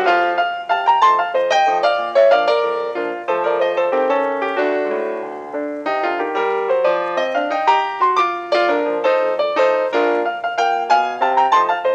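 Solo piano music: a gentle flowing melody over broken chords, with a softer held passage midway through.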